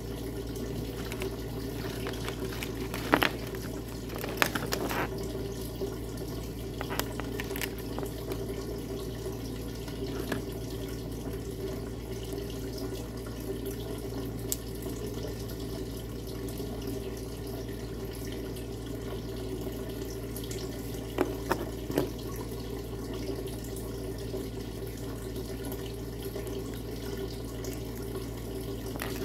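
Steady rushing background noise with a low hum, broken now and then by sharp clicks and light rustles of small plastic parts and packaging being handled, in a few clusters.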